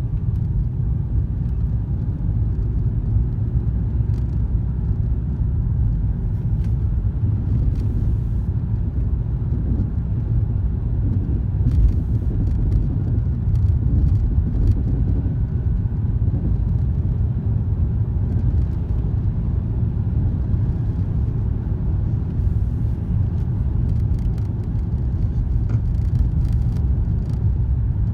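Steady low rumble of a 2003 BMW E46 325xi on the move, with faint knocks now and then. These are typical of the driver-side clunking noise the owner is trying to diagnose.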